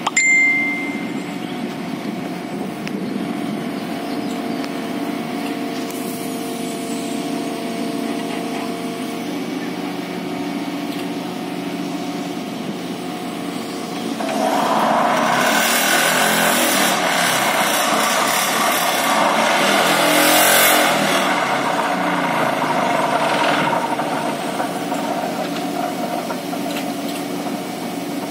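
A hydraulic vibratory pile driver on a road-rail excavator starts about halfway through and runs for roughly nine seconds, a loud, dense rattling buzz as it vibrates a steel sheet pile into the ground. Under it the excavator's diesel engine runs steadily. A brief high beep sounds right at the start.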